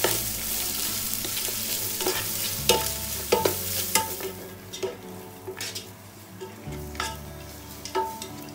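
Sliced red onions sizzling in hot oil in a nonstick pot as a spatula stirs them, with repeated short scrapes and knocks of the spatula against the pot. The sizzle is strongest in the first few seconds, just after the onions go into the oil, then fades.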